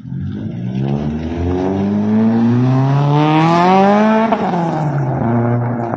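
Renault Clio Sport's engine revved through its freshly fitted exhaust: one long, steady climb in revs, then released with a brief pop and dropping back to idle for the last second or so.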